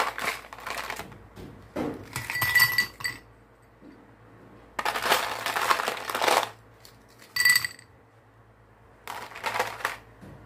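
Ice cubes dropped into a drinking glass in several handfuls, rattling and clinking against the glass, with a ringing glass note on some of the drops.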